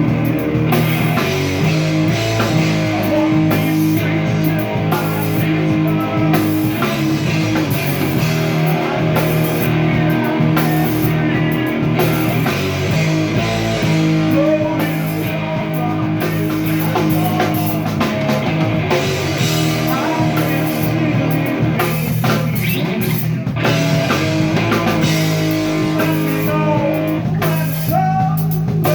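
Rock band playing live, with guitar and drum kit in a dense, steady mix.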